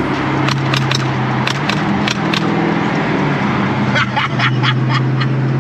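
Car engine running steadily, heard from inside the cabin of a moving car during a Dodge SRT cruise. The drone rises in pitch for about a second, roughly two seconds in, then settles back. A scatter of sharp clicks sits over it.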